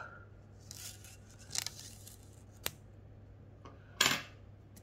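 Cellophane shrink-wrap being picked at and torn off a card-deck box: scattered crackles and a sharp click, then a louder rip of the plastic film about four seconds in.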